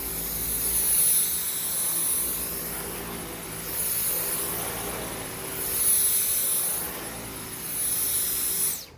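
Dyson V10 Total Clean cordless vacuum running on carpet: a high-pitched motor whine over the rush of suction, rising and falling in level every couple of seconds. The motor cuts off suddenly near the end.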